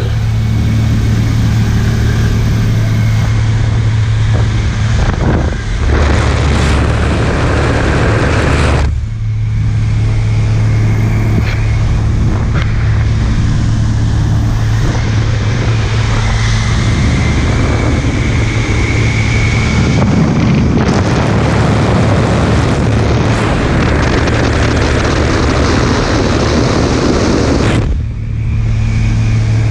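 Cessna 182's piston engine and propeller droning steadily, with wind rushing in through the open jump door. The wind rush swells louder at about six to nine seconds in and again from about twenty-one to twenty-eight seconds.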